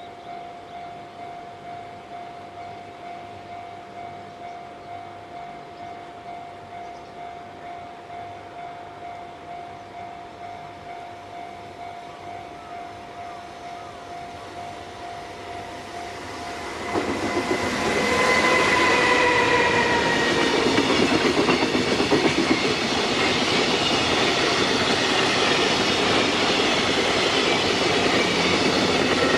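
A steady ringing tone repeats about twice a second while a JR Freight container train approaches. About seventeen seconds in, the electric locomotive passes close by with a loud rush and a whine that falls slightly. The clickety-clack of the container wagons rolling past follows.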